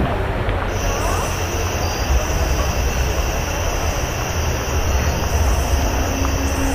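Train running with a steady low rumble, joined about a second in by a high, steady whine.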